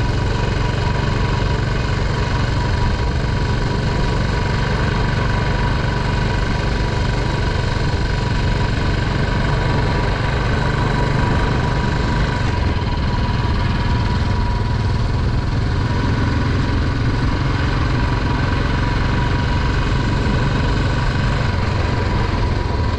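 Royal Enfield Classic 350's single-cylinder engine running steadily at a low cruising speed, mixed with a steady rush of wind and road noise.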